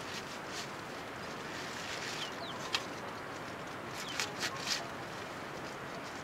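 Curved sickle blade slicing through nettle leaves and stems over a metal bowl: a sharp snip about two and a half seconds in and three quick cuts near the middle, over a steady hiss. Short falling peeps of small birds come a few times.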